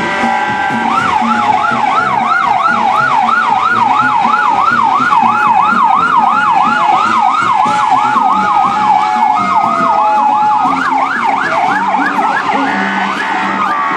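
Emergency vehicle sirens: a fast yelp siren sweeping up and down about three times a second through most of the stretch, over steady tones from other sirens or horns. Near the end a slower rising and falling siren takes over.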